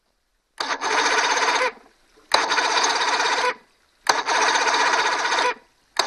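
Electric starter on a 1982 Johnson 90 hp two-stroke outboard running in three bursts of about a second and a half, each opening with a click, with a fourth burst starting right at the end as the key is turned. The starter makes noise but the engine doesn't turn over.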